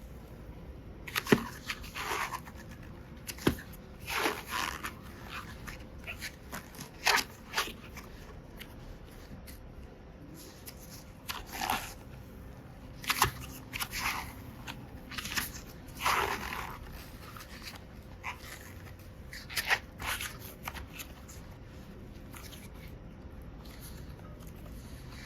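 Slime being squished and pulled apart by hand, with small plastic pieces clicking and crunching in it: irregular squelches and crackles, some short and sharp, others drawn out.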